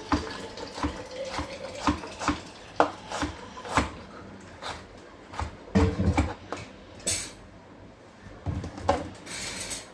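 Kitchen utensils and a metal pot clinking and knocking as ingredients are handled and added: a string of short taps and clicks, some ringing briefly, with a brief rustle near the end.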